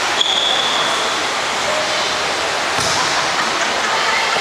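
Steady hubbub of a large sports hall: crowd and officials' chatter mixed together and echoing. Just after the start a single high, steady tone sounds for about a second.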